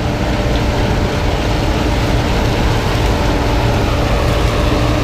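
Combine harvester running steadily while harvesting corn, a constant engine and machinery drone with a faint steady whine above it.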